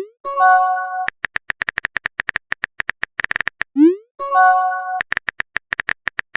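Text-message app sound effects: runs of rapid phone-keyboard tapping clicks, each run ending in a short rising swoosh as a message is sent, then a brief multi-tone notification chime. The type–send–chime cycle comes round about twice.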